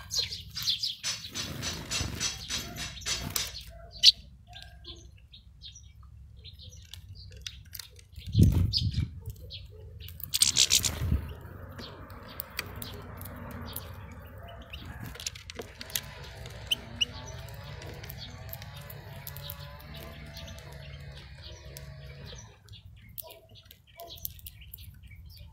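European goldfinches twittering at a seed feeder, loudest in the first few seconds, with sharp clicks scattered through. A dull thump comes about a third of the way in, followed shortly by a brief rustling burst.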